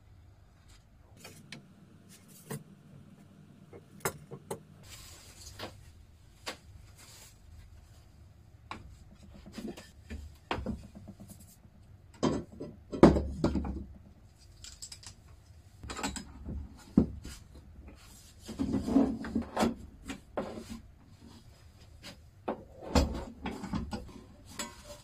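Clamps and wooden boards being handled while a glued-up pine panel is clamped flat: scattered clicks, knocks and rubbing of wood and metal clamps. The knocks come in busier clusters about halfway through and again near the end.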